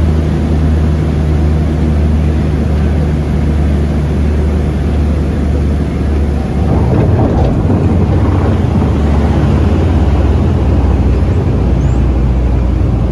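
A de Havilland Canada DHC-6 Twin Otter's two PT6A turboprop engines and propellers heard from inside the cabin, a steady low drone as the aircraft lands and rolls out along the runway. About six and a half seconds in, the engine sound grows louder and rougher and stays so.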